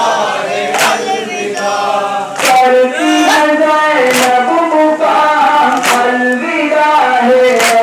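Men chanting a farewell noha (Shia lament) together in unison. A sharp slap of open hands on chests (matam) lands in time with the chant, five times, about every second and three-quarters.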